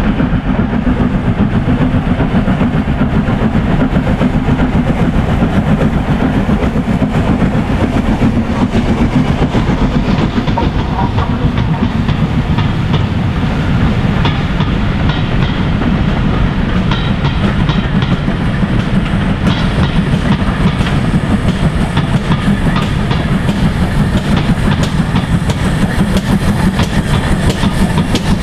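Steam-hauled passenger train running past: the Southern Railway 'Schools' class three-cylinder 4-4-0 No. 926 'Repton' and its coaches making a steady, loud noise on the track as the carriages roll by.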